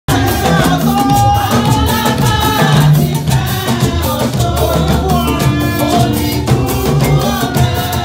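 Live church choir singing through a sound system, women's voices carrying the melody over steady drum and shaker percussion.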